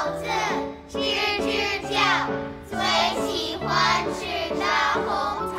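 Children singing a song in short phrases over instrumental accompaniment.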